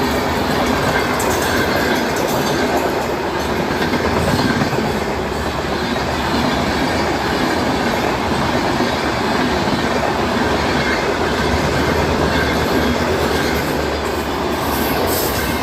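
Train running along the track: a steady, loud noise of wheels on rails.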